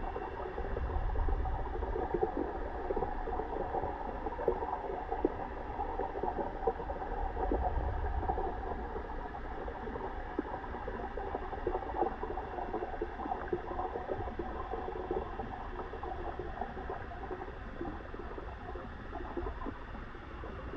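Water gurgling and bubbling steadily, with many small ticks through it and a low rumble that swells twice, near the start and about eight seconds in.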